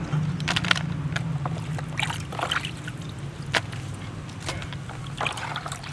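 Light rustles and taps as fresh herbs and vegetables are handled and laid on a woven bamboo basket, over a steady low motor-like hum.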